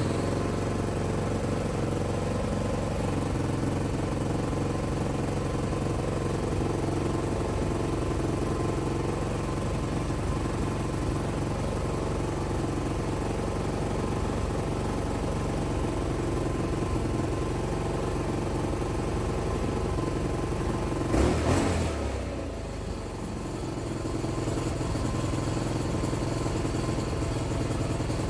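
Hyosung Comet GT650 V-twin motorcycle engine running steadily after its cylinder head repair and reassembly. A brief louder burst comes about three-quarters of the way through, after which it runs a little quieter for a couple of seconds before settling back.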